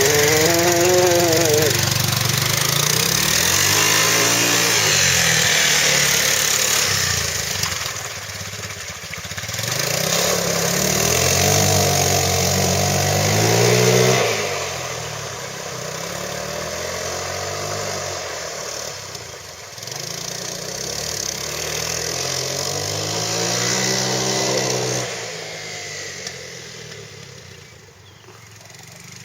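Quad (ATV) engine revving up and down several times, its pitch rising and falling in repeated swells. It fades off over the last few seconds.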